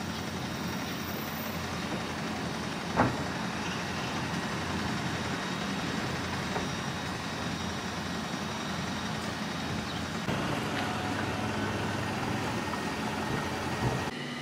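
Steady rumbling background noise of road traffic, with a single sharp knock about three seconds in.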